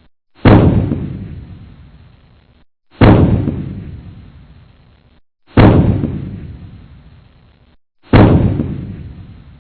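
A deep boom that starts suddenly and fades away over about two seconds, repeated four times about two and a half seconds apart, like a looped sound effect.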